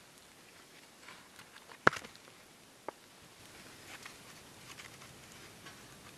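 One sharp knock about two seconds in and a smaller tick a second later, then faint crackling and rustling as hands work with small dry twigs and plant material.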